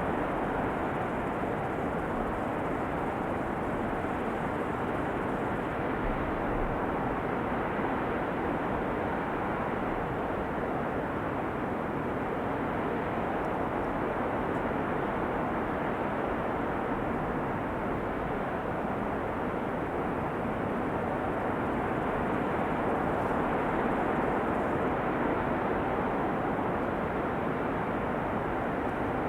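Flowing river water in a steady, even rush.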